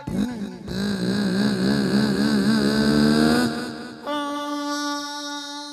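A man imitating a vehicle's engine in second gear with his voice into a microphone: a wobbling, slightly rising drone lasting about four seconds. A steady held tone takes over about four seconds in.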